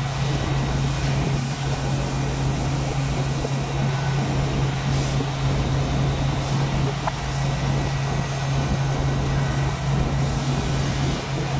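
YT-1050N outsole edge roughing machine running with a steady low hum while the edge of a rubber shoe outsole is worked against its spinning roughing head.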